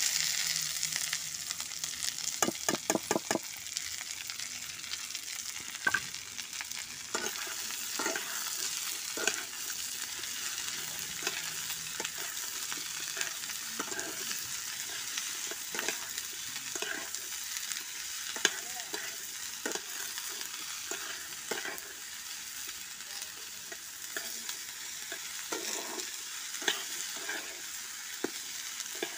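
Chopped capsicum and beans sizzling steadily in hot oil in a kadai, with a spatula stirring and scraping against the pan in separate strokes. There is a quick run of scrapes about two to three seconds in.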